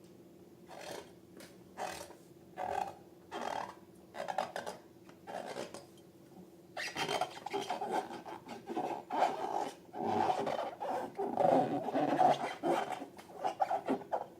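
Hands rubbing and scraping slime and balloon material. First comes a string of separate short strokes, about two a second, then from about seven seconds in a continuous, denser rubbing.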